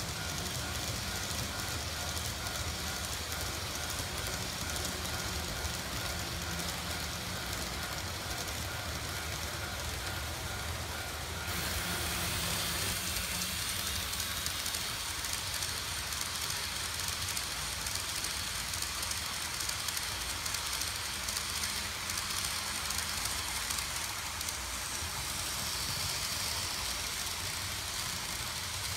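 N gauge model trains running on the layout's track: a steady rolling rumble of small wheels and motors, its character changing about eleven seconds in.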